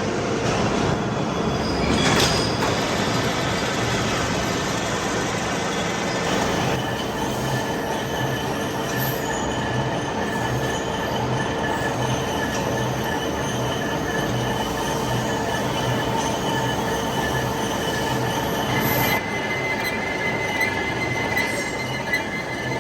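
Manual metal-cutting machine tool running under cut, a steady mechanical run with a fast low pulsing and a steady whine. About nineteen seconds in, a higher whine comes in.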